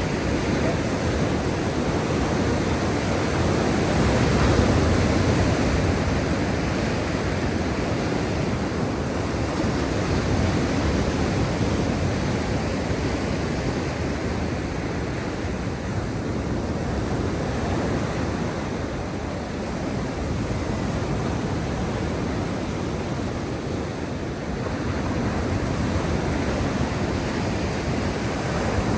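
Sea surf: waves washing in continuously as a steady rushing noise that slowly swells and eases.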